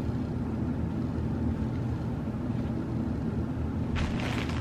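Steady low background rumble. About four seconds in, a burst of rustling starts as a packet of saris is picked up.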